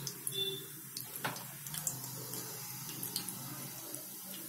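Cumin seeds sizzling in hot oil in a pan: a steady hiss with scattered small pops and crackles, as the seeds are tempered for a tadka.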